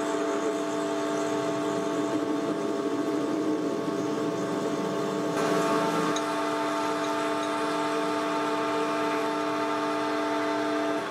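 Metal lathe running with a letter-Y twist drill cutting into a 4140 steel bar, drilling the tapping hole for an M12 thread: a steady gear whine over the rough sound of the drill cutting. At the very end the lathe is switched off and the whine begins to fall as the spindle runs down.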